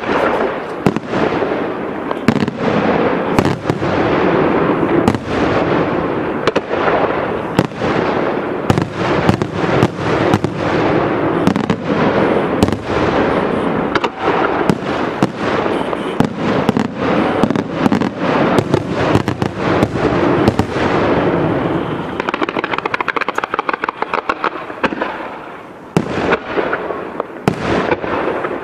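Aerial firework shells from a La Rosa Artists Fireworks display bursting in a rapid, continuous barrage of bangs. A few seconds of fast crackling come about two-thirds of the way through, then a brief lull and more loud bursts near the end.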